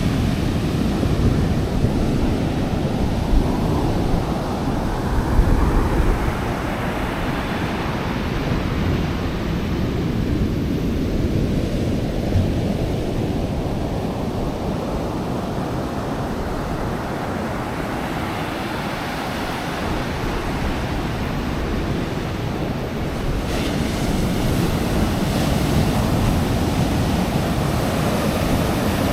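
Ocean surf washing onto a beach in a steady, continuous roar, with wind on the microphone.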